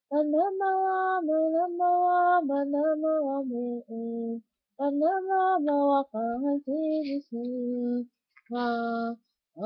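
A woman singing a song solo and unaccompanied, holding notes and stepping between pitches, in phrases broken by two short breaths.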